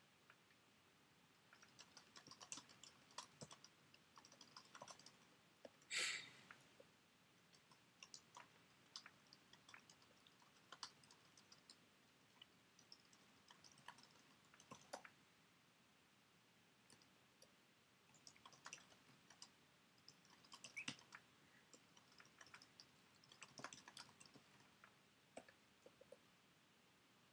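Faint typing on an Apple iBook G4's built-in laptop keyboard: bursts of key clicks separated by short pauses. One louder noise, about half a second long, comes about six seconds in.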